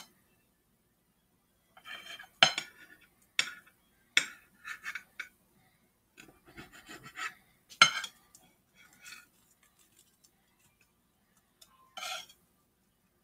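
Knife cutting through a toasted sandwich: crunching, rasping strokes through the crisp toast in short bouts, with several sharp clicks of the blade against the plate.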